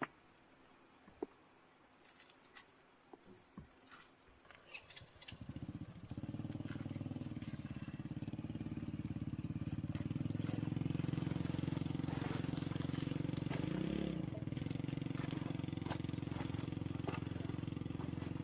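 A few light clicks, then a small engine starts about five seconds in, builds over a few seconds and runs steadily, with a brief change in its note near the end.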